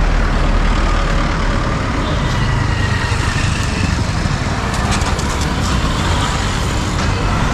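Busy road traffic: engines of passing vehicles, trucks among them, making a loud, steady rumble.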